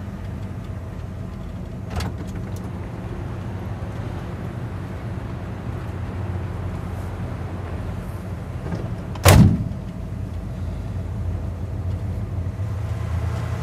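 A van's sliding side door slams shut with one loud bang about nine seconds in, over the steady low hum of the van's idling engine inside the cabin. A short click sounds about two seconds in.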